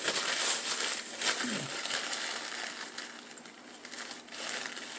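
Paper napkin rustling and crumpling in the hands as it is unfolded and used to wipe the fingers, loudest in the first two seconds.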